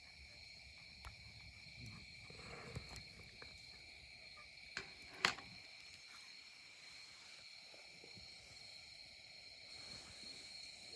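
Insects singing in a steady, faint, high-pitched chorus on two pitches, with a few sharp clicks, the loudest about five seconds in.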